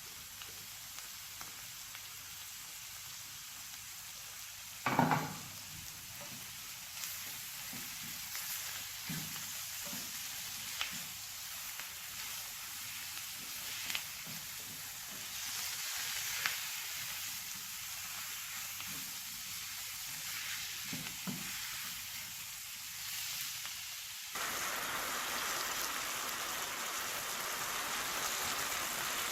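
Chicken pieces and onions sizzling as they fry in oil in a pan, with small clicks of stirring. There is a loud knock about five seconds in, and the sizzle gets louder near the end.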